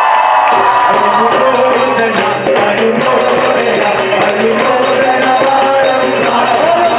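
Live devotional song sung by young men into microphones, with hand drums, jingling percussion and keyboard accompaniment, a held note gliding at the start; the crowd claps along.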